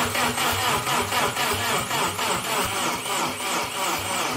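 Starter motor cranking a Renault R2087 four-cylinder engine with the ignition off, turning it over in an even rhythm of compression pulses. It is a first test to check the new 12-volt starter and build oil pressure before starting. It cranks on a weak battery.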